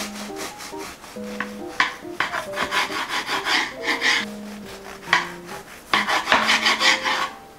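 Serrated bread knife sawing through a loaf of homemade milk bread on a cutting board: quick back-and-forth rasping strokes in several runs, with short pauses between slices.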